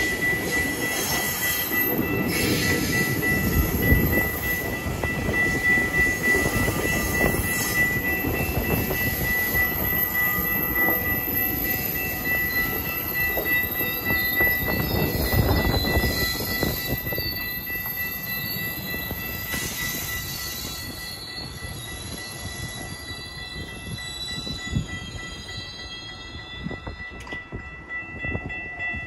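A GO Transit bilevel passenger train rolls through a level crossing, its wheels clattering and rumbling on the rails, and the noise eases off over the last several seconds as the end of the train passes. The crossing's warning bell rings as a steady high tone throughout.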